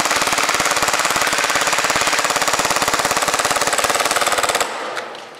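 Action Army AAP-01 gas blowback airsoft pistol firing a long full-auto burst, a very rapid even stream of shots. It stops abruptly about four and a half seconds in.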